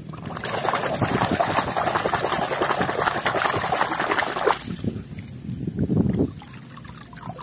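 Water splashing and sloshing in a plastic basin as a hand scrubs a toy car under the surface: a continuous churn for about four and a half seconds, then a shorter burst of sloshing, then it dies down.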